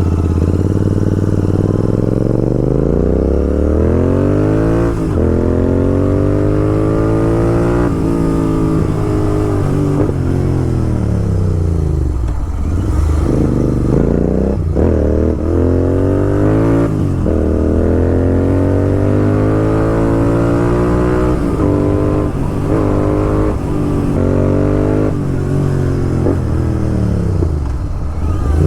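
Royal Enfield Continental GT 650's 648 cc parallel-twin, running through a Red Rooster aftermarket exhaust, under way on the move. The revs rise and fall over and over as the rider accelerates and changes gear: the pitch climbs in each gear and drops sharply at each shift.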